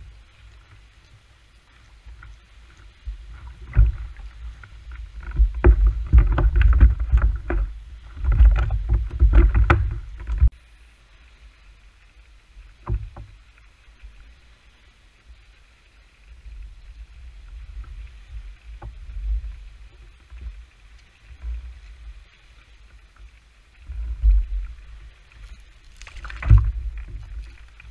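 Fishing kayak on the water: low rumbling noise of water and handling around the hull on the boat-mounted camera's microphone, coming in uneven bursts. A short sharp noise comes near the end.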